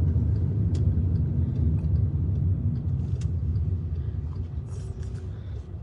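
Low rumble of road and engine noise inside a moving car's cabin, with a few faint clicks, easing off toward the end.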